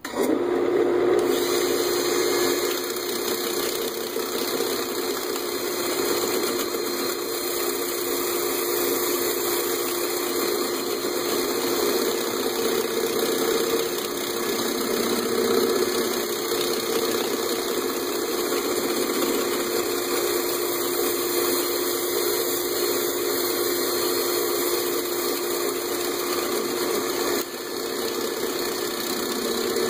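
Cordless drill spinning a sanding pad against the inside of a natural-edge bowl turning on a wood lathe: a steady motor hum with a sanding hiss over it. The green bowl is warping badly, which makes the pad bounce.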